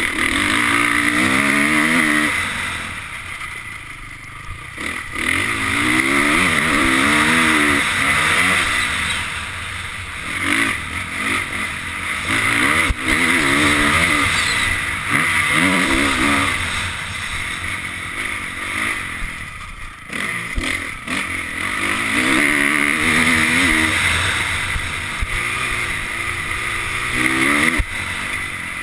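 Honda CRF450 motocross bike's single-cylinder four-stroke engine revving hard and falling off again and again, its pitch climbing through each gear and dropping at each shift or when the throttle is closed. Loud rushing wind noise on the helmet-mounted microphone runs underneath.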